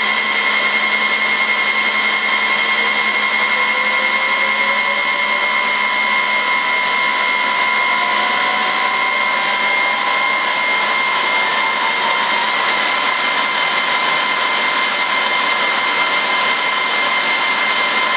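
Asus ESC4000 G2 2U server's cooling fans running very loud: a steady rush of air with several whining tones, one of which slowly rises in pitch over the first half as the fans ramp up with the Xeon Phi coprocessors under load.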